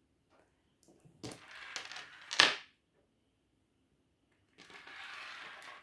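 Oracle cards being handled on a table: a rustling slide with a sharp snap about two and a half seconds in, then a steady brushing sound near the end.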